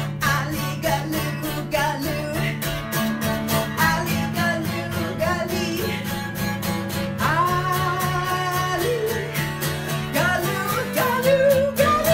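Woman singing a fast marching chant over quick, steady strumming of an acoustic guitar.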